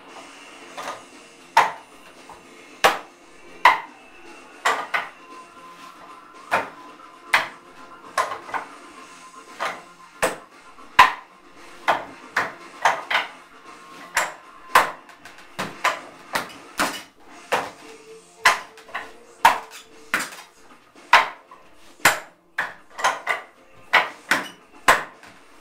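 Wing Chun wooden dummy (mook jong) struck by hands and forearms: a running series of sharp wooden knocks at an uneven pace, often two or three in quick succession.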